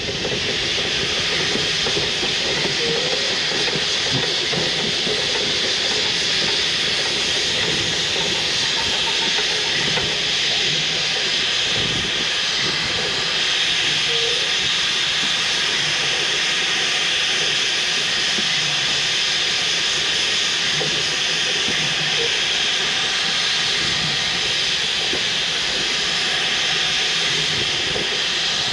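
Narrow-gauge steam locomotive hissing steadily and loudly with escaping steam as it runs along the line, over a low rumble of its wheels on the rails.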